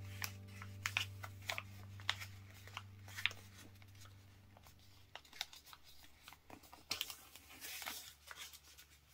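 A sheet of paper being folded and creased by hand into a paper airplane: a scatter of short crinkles and crackles. A low held note of background music dies away about five seconds in.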